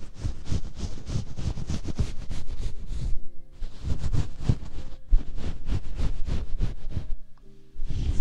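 Fingertips scratching and rubbing a fluffy plush blanket in quick rustling strokes, pausing briefly about three seconds in and again near the end. Soft background music is heard in the pauses.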